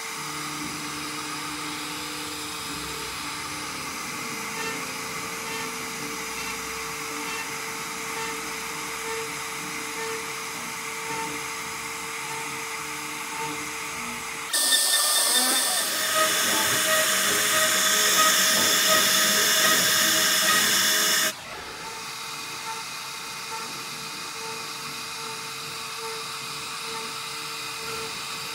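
CNC router spindle running steadily with a high whine while cutting wood. About halfway through, a much louder hissing cutting noise starts suddenly, lasts about seven seconds, and stops just as suddenly.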